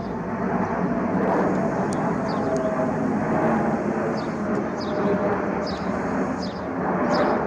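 Jet airliner on approach flying over, a steady rushing engine noise with a faint whine running through it.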